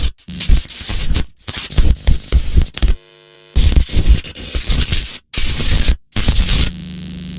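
Harsh, distorted static and noise bursts that cut in and out abruptly, with a short buzzing tone about three seconds in. A steady hum takes over near the end.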